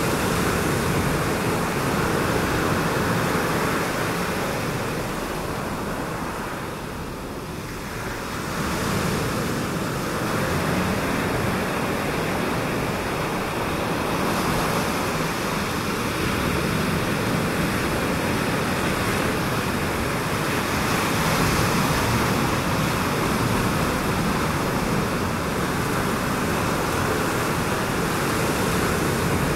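Steady wash of surf breaking on a shallow reef, an even rushing noise that dips briefly about seven seconds in.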